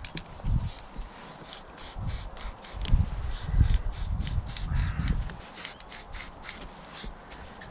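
Quick rubbing and scraping strokes against a painting surface, several a second, with dull low bumps in between.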